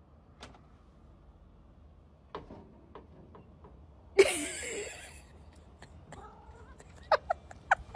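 Domestic cat meowing in answer to being called for food: one louder, drawn-out meow about four seconds in, then a quick string of short meows near the end.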